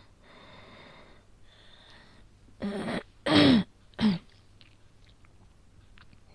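A woman's wheezy breathing, then three harsh, voiced coughs about half a second apart, the middle one loudest, as she struggles through an asthma attack.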